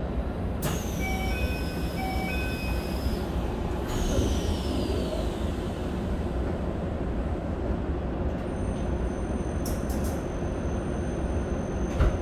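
Keikyu 1000 series train car's door chime sounding and its sliding doors closing with a falling whine, shutting about four seconds in, over the steady low rumble of the stopped car. Later a thin, steady high whine sets in, and a sharp knock comes near the end.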